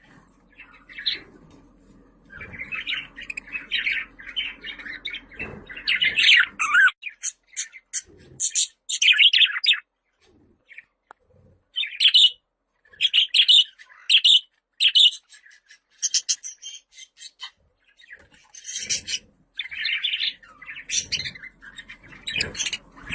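Budgerigar chirping and warbling in quick, busy bursts, broken by a few short pauses.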